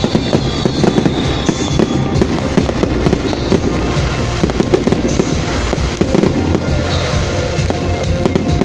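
A dense, continuous barrage of fireworks: rapid irregular bangs and crackling, with music playing underneath.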